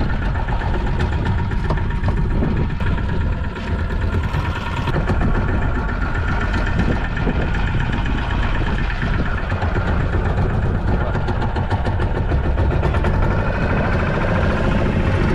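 Fishing boat's engine running steadily, a continuous low rumble.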